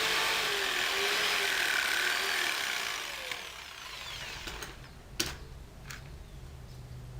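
Electric jigsaw cutting Eucatex hardboard, its motor whine wavering under load, then switched off and winding down about three seconds in. Two sharp knocks follow in the quieter stretch.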